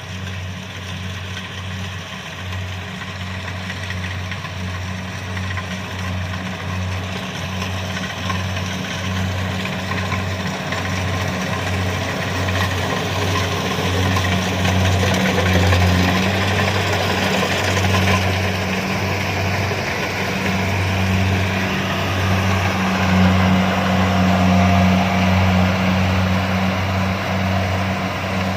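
Kubota DC-70 rice combine harvester running steadily: a low diesel engine hum under a broad rushing mechanical noise, growing gradually louder.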